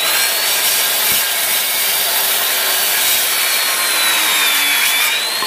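Corded circular saw cutting across a wooden board: the motor's high whine runs over the rasp of the blade in the wood. The whine sags about four to five seconds in as the blade bogs down a little, because the saw entered the cut at a slight angle and was corrected. It then rises again near the end.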